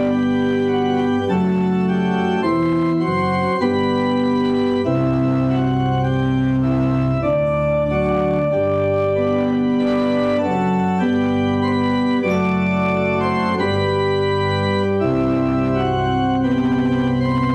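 Organ music: held chords, changing every second or so, at a steady level.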